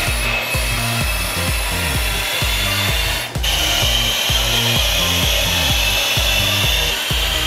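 Two-post car lift lowering a car: a steady hydraulic hiss and whine that drops out for a moment about three seconds in and comes back slightly higher in pitch. Electronic music with a steady thumping beat plays underneath.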